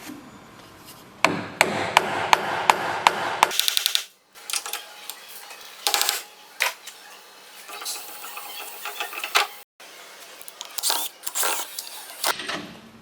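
Woodturning workshop noise in short edited clips. A tool cuts a wood bowl blank for about two seconds with sharp knocks about three times a second, then come shorter scrapes, taps and bursts of cutting.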